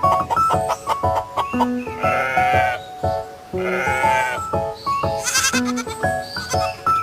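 Two animal bleats, each under a second, about two and three and a half seconds in, over bouncy music of short plucked-sounding notes. A brief high trill comes about five seconds in.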